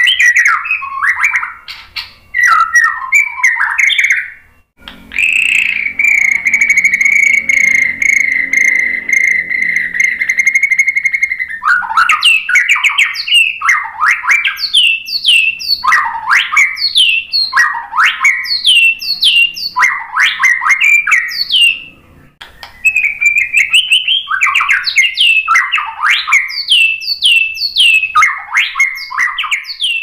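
White-rumped shama (murai batu) singing. Rapid, varied whistled phrases give way to one long steady whistle held for about six seconds, then to runs of quick falling notes, roughly two a second.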